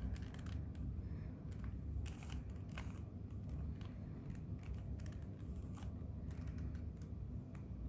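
Plastic 2x2 Rubik's Cube being turned by hand: irregular quick clicks and clacks as its layers are twisted, over a low steady hum.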